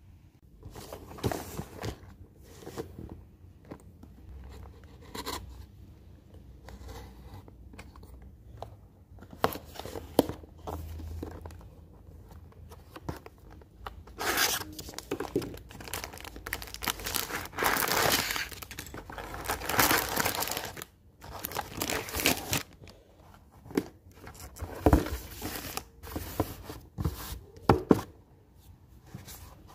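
A cardboard LEGO set box being opened by hand: perforated tabs and flaps torn, scraped and folded back, in irregular rustling bursts with sharp clicks. The busiest, loudest stretch is in the middle, and the crinkle of the plastic parts bags being handled and set out follows.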